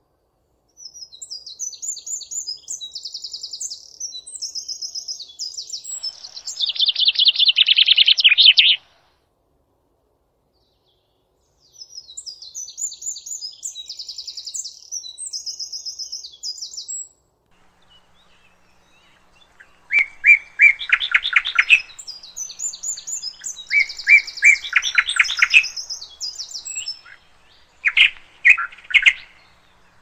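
A songbird singing varied phrases of quick repeated high notes and trills. It comes in three spells with short pauses between them, and the loudest part is a fast rattling run of notes near the end of the first spell.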